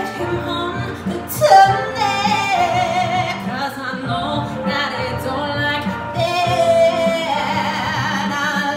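A woman singing, holding some notes with a wavering vibrato, with music under her voice.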